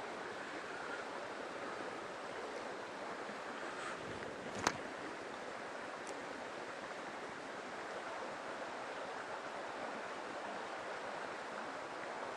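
Mountain stream flowing steadily, with one sharp click a little under five seconds in.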